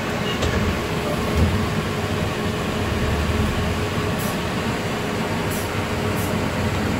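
Steady rumble of a city bus in motion heard from inside the passenger cabin: engine and road noise, with a few light rattles in the second half.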